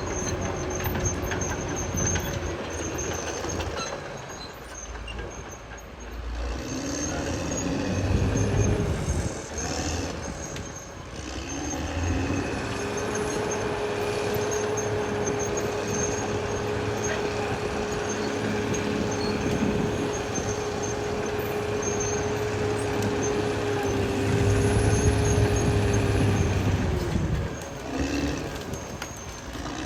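Caterpillar D6R XL bulldozer working: its diesel engine runs under changing load, easing off briefly a few seconds in, and a steady high whine comes in about halfway through and holds for some fifteen seconds.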